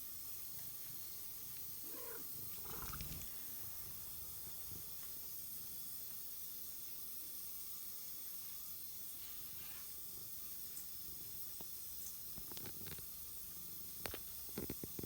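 Domestic cat purring, with a short call about two seconds in and a few light clicks near the end.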